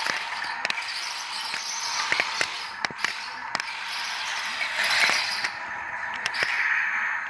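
Remote-control toy tank with rubber tracks running, a steady whirring with a constant tone and scattered sharp clicks.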